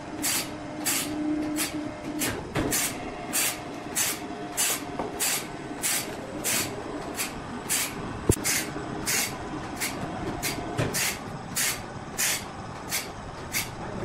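Short bursts of hissing, evenly repeated about one and a half times a second, over a faint steady machine hum.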